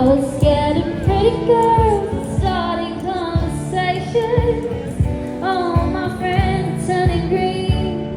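A female street singer singing a song over guitar accompaniment, with a regular beat underneath.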